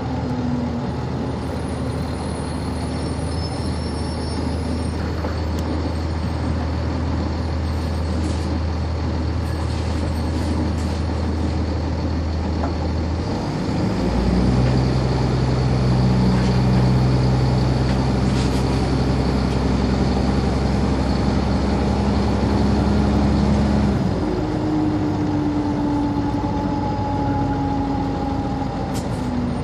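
Cummins ISC inline-six diesel of a NovaBus RTS transit bus heard from on board, running at a low steady hum. About halfway through, the engine note steps up and gets a little louder, holds steady for about ten seconds, then drops back to the low hum; a faint falling whine follows near the end.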